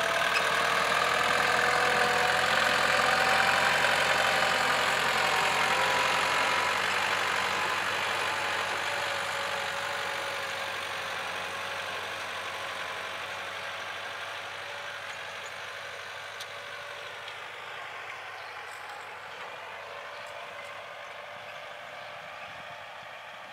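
Kubota L4708 tractor's 47-horsepower diesel engine running under load as it pulls a disc harrow through ploughed soil. It passes close, loudest a few seconds in, then fades steadily as it moves away across the field.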